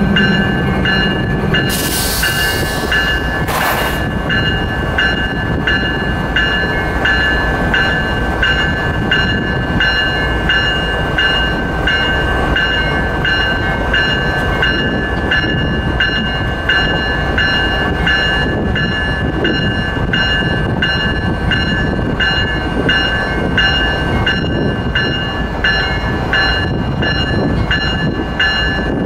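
Locomotive warning bell ringing over and over at a steady pace on a driverless iron-ore locomotive, the warning that it is about to move off on its own. There are two short blasts of air about two seconds in, over the steady low rumble of the locomotive.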